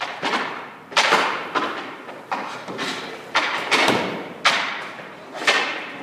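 Hockey pucks struck with a stick and hitting the goalie's pads: a series of sharp knocks, about one a second with smaller ones between, each echoing.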